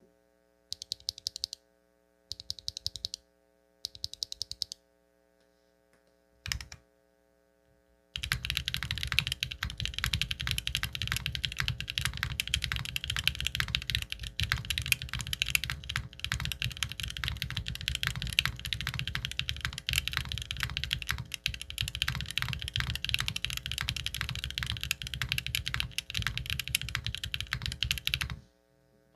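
Neo 65 mechanical keyboard with Duhuk Lumia Matcha V4 linear switches on a carbon-fibre plate being typed on. It opens with three short bursts of rapid repeated keystrokes and a single key strike, then goes into about twenty seconds of continuous fast typing.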